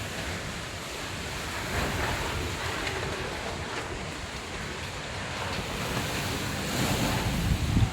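Sudden heavy rainstorm in strong wind: a steady rush of rain and wind, with gusts buffeting the microphone that build near the end.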